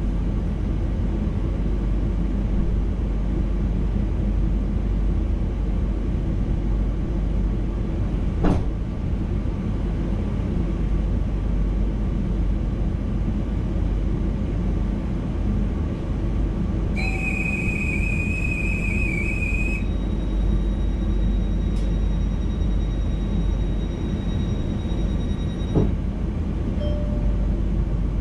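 VIRM double-deck electric intercity train running, a steady low rumble. Two sharp clicks, about eight seconds in and near the end, and a high steady tone lasting about three seconds a little past the middle.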